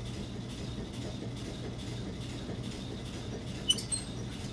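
Steady low machinery hum with faint, evenly spaced ticks. A single sharp click comes about three and a half seconds in, as the compressed-air supply valve is handled.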